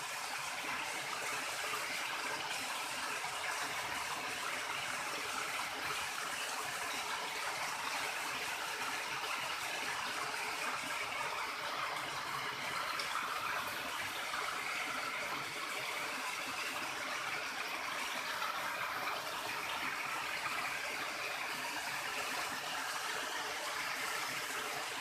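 River water flowing with a steady, unbroken rush.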